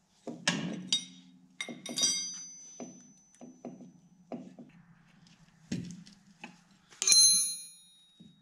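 Wrench and steel air fittings clinking and knocking as the fittings are worked off a removed truck spring brake chamber, with a run of small clicks in the middle. Two sharper metal clinks ring on briefly, about two seconds in and, louder, about seven seconds in.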